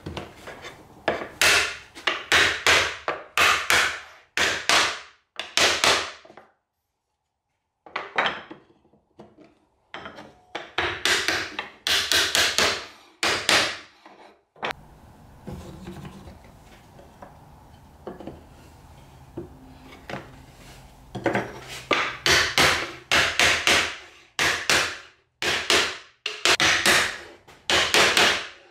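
Wooden mallet tapping glued wooden drawer-slide supports into place in a frame: quick repeated knocks, several a second, in three runs separated by pauses.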